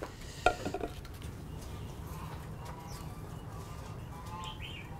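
Quiet outdoor background with one sharp click about half a second in, then faint bird calls.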